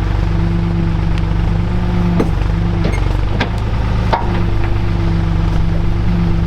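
Engine of a loader tractor running steadily at a constant speed, with a few sharp clanks from the machine's work about two, three and four seconds in.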